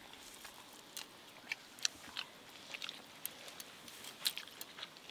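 Faint chewing by a person eating soft rice and greens by hand, with a scatter of small, wet mouth clicks.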